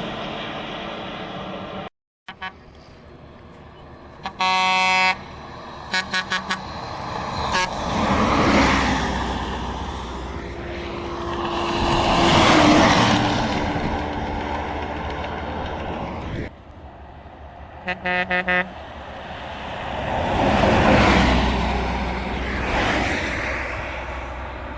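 Buses passing at speed on a highway, each one swelling up and fading away, with bus horn blasts: a long honk about four seconds in, then a quick run of short toots, and another run of horn toots around eighteen seconds. The sound breaks off abruptly twice between passes.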